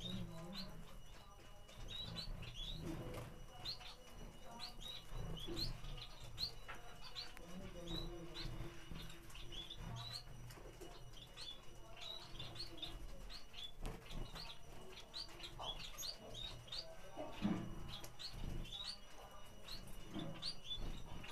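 Small caged exotic finches chirping: many short, high chirps overlapping, several a second, with a few soft knocks underneath.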